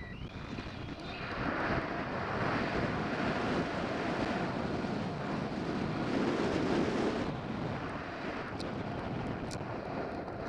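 Wind rushing over the rider's camera microphone while riding a splitboard fast down a powder slope, with the hiss of the board through the snow. It builds over the first couple of seconds and dulls a little after about seven seconds.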